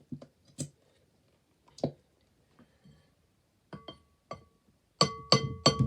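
Glue bottle knocked against a bowl to empty out the last of the glue: a few light taps, then three sharp knocks near the end, each leaving the bowl ringing with a clear tone.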